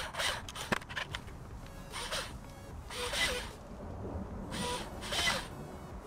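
Power drill boring the screw holes in a switch-panel mounting bracket, run in short bursts about once a second.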